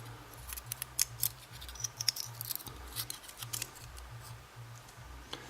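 Small, sharp metallic clicks and taps from handling the pins of a euro lock cylinder as it is gutted, busiest in the first few seconds and sparser later. A steady low hum runs underneath.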